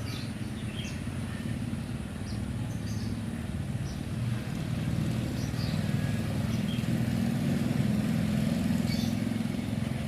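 A small engine running steadily with a low pulsing drone that grows louder about halfway through, with short high bird chirps over it.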